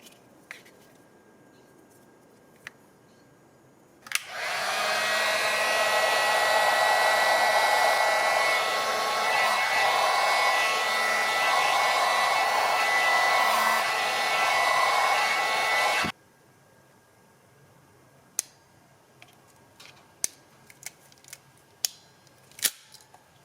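Electric heat gun blowing steadily, switched on about four seconds in and cut off abruptly some twelve seconds later, used in wire-splice work. A few light clicks of handling follow.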